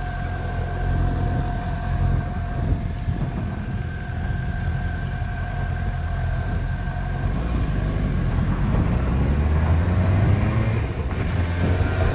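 Suzuki GSX-S750's inline-four engine idling steadily, picked up by a chin-mounted helmet camera, then pulling away about eight seconds in, its note rising as the bike accelerates.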